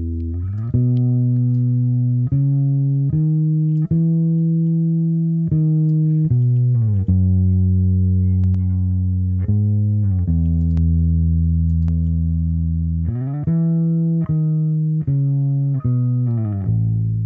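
Solo bass guitar playing a slow line of long held single notes, some sliding up or down into the next. It is compressed through a Fairchild 670 tube-compressor emulation plugin, which keeps the notes sustaining.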